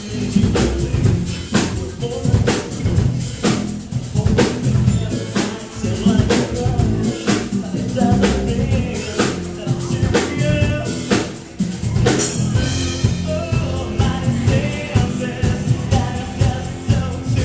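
Live rock band playing loud through a small PA: a drum kit keeps a steady beat with bass drum and snare under electric guitars and keyboard, and a male singer's voice comes through the microphone.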